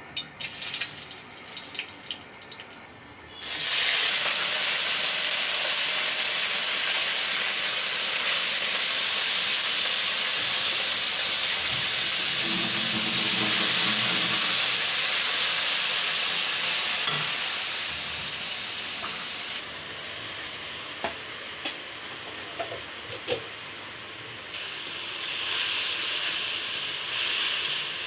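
Food sizzling in hot oil in a pan. The sizzle starts suddenly about three seconds in and settles to a lower level later, with occasional light clicks of stirring.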